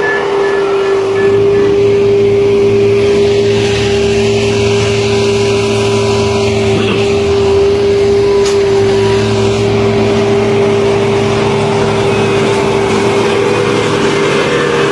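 Heavy road-construction machinery running steadily: a constant engine hum under a loud, unchanging whine.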